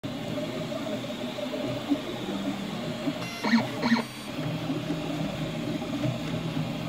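Desktop FDM 3D printer at work: its stepper motors hum in shifting tones as the print head moves over the parts. Two short louder sounds come a little past halfway.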